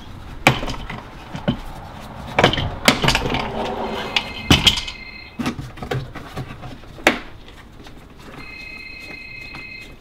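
Hard plastic clicks and knocks as the cup-holder dash panel of a golf cart is worked loose and pulled out by hand. A steady high beep sounds twice, about a second each time, near the middle and near the end.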